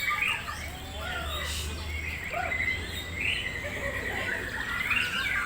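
Several songbirds singing over one another in a busy chorus of chirps and warbles, among them a white-rumped shama. A low rumble runs under the song for about two seconds near the start.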